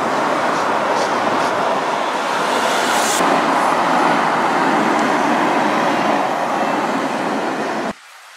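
Buses and cars passing close on a city street: a steady loud rush of engine and tyre noise. It cuts off abruptly near the end.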